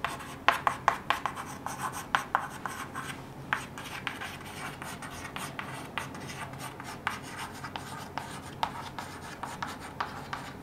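Chalk writing on a blackboard: a quick irregular run of taps and short scratches as a word is written out.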